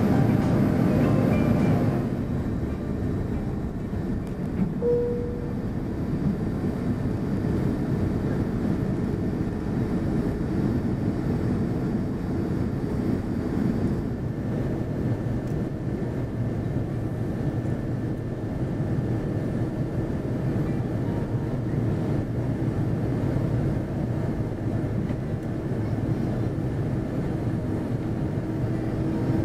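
Steady cabin rumble of an Airbus A330-300 airliner on approach, engine and airflow noise heard from a window seat beside the wing engine. The level drops a little about two seconds in. A brief single tone sounds about five seconds in.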